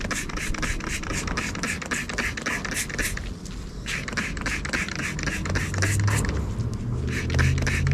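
Rapid scrubbing strokes on a metal hood hinge being cleaned with degreaser, in quick runs with two short pauses.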